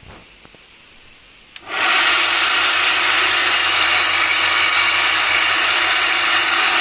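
Electric coconut grater switched on with a click about a second and a half in, then its motor and grating drum running loud and steady. It is running loud and rough, a fault put down to worn bearings or a worn grater roll.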